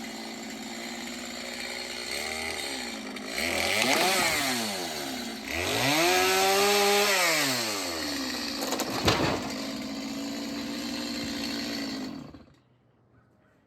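Stihl chainsaw's two-stroke engine revving up and down several times, with one long high rev in the middle. It settles to a steady idle with a sharp click, then shuts off near the end.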